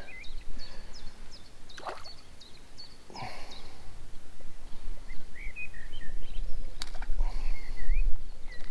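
Small birds chirping in short, scattered calls over a low rumble that grows louder in the second half. A few sharp knocks come about two, three and seven seconds in.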